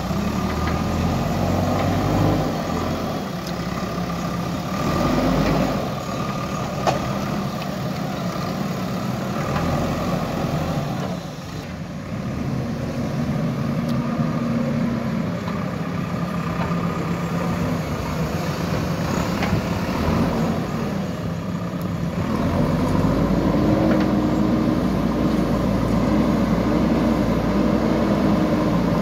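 JCB 3DX Super backhoe loader's diesel engine running under working load, its revs rising and falling several times and loudest in the last few seconds. A single sharp knock sounds about seven seconds in.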